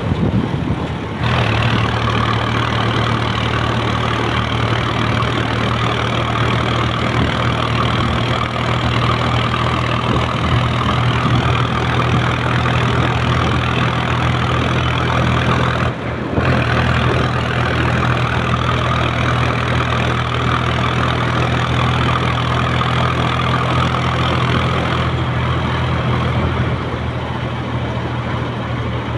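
An engine running steadily at idle, an even low hum that dips briefly about sixteen seconds in.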